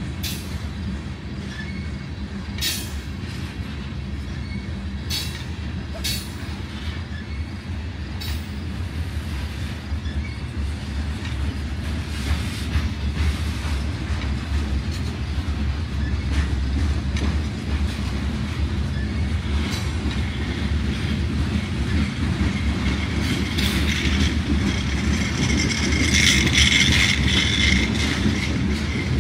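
Covered hopper cars of a slow freight train rolling past: a steady low rumble with sharp clacks of wheels over rail joints in the first several seconds, and a high-pitched wheel squeal that grows loudest near the end.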